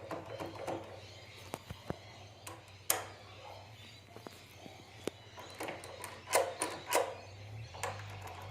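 Scattered clicks and knocks of objects being handled and set down, the loudest about three seconds in and twice more near the end, over a faint low steady hum.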